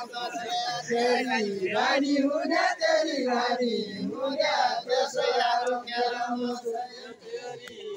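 Men's voices singing a Deuda, the Far Western Nepali folk song, together in chant-like unison, with long held and gliding notes.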